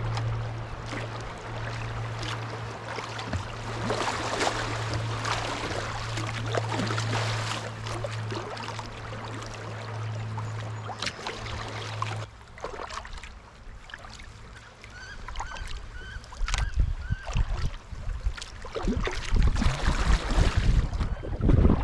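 Kayak paddling on a moving river: water splashing and trickling around the paddle and hull, with a steady low hum that stops about halfway. Later a bird calls a few times, and near the end wind buffets the microphone.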